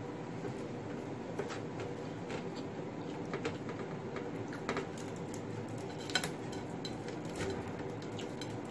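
Scattered light clicks and clinks of fingers and fingernails against a ceramic plate while eating rice and fried fish by hand, over a steady low hum; the sharpest click comes about six seconds in.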